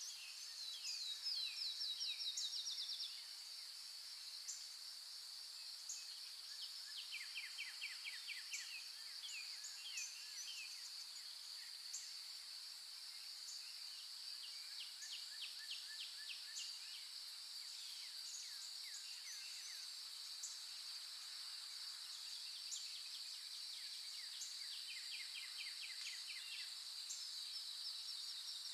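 Nature ambience: a steady high-pitched insect drone with birds calling over it in rapid trills of short falling notes. The loudest trill comes in the first three seconds.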